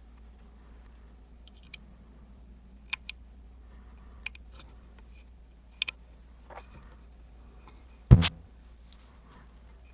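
Sparse small clicks of a lock pick and tension wrench working the pin stack of an Emhart Black Belt pin-tumbler lock, with one louder double knock about eight seconds in.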